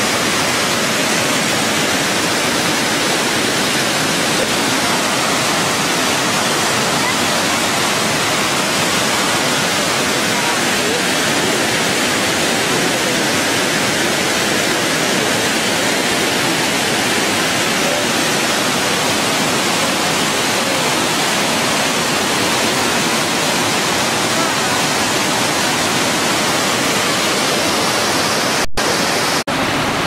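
Probiy waterfall on the Prut River pouring over rock ledges into a pool: a loud, steady roar of falling water. The sound cuts out for an instant near the end.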